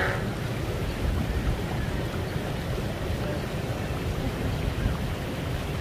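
Jacuzzi jets running, a steady rush of bubbling, churning water.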